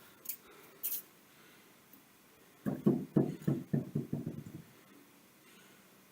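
Two faint clicks, then a quick run of about eight knocks, roughly four or five a second, fading as they go.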